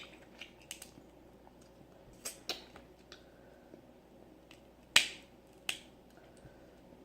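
Snow crab shell being cracked open by hand: scattered small clicks and snaps, with one loud sharp crack about five seconds in and a smaller one just after.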